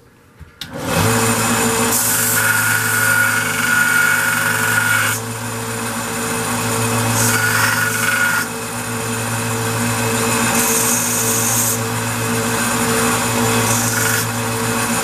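A small benchtop belt grinder starts up about half a second in and runs with a steady hum. The cut end of a stainless steel rod is pressed against the belt four times, each contact adding a spell of grinding hiss, to flatten the rough end.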